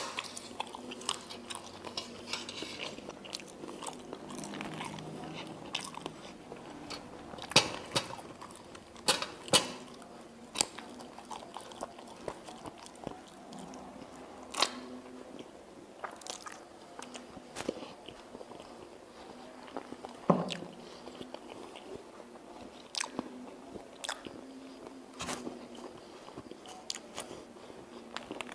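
Close-miked eating of mie ayam toppings, a meatball and a chicken foot: chewing and biting with sharp, irregular clicks and smacks scattered through.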